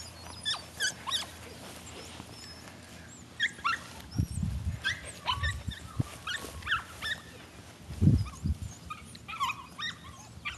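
A miniature poodle puppy gives short, high yips and whimpers while it plays. A few low thumps come in the middle, the loudest about eight seconds in.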